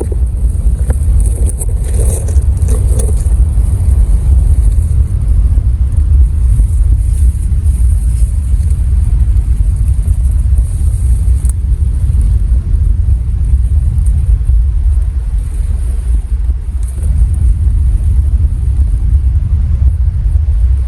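A steady, heavy low rumble with a faint high hiss above it, starting and stopping abruptly.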